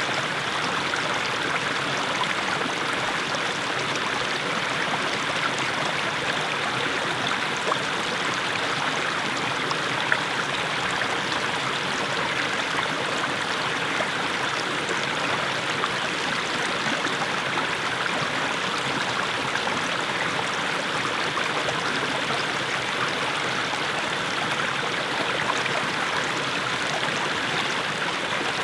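Small mountain brook splashing steadily over low steps of mossy stones.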